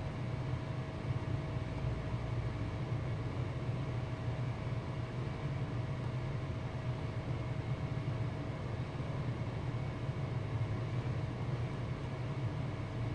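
Steady low background hum with a faint, constant higher whine, unchanging throughout.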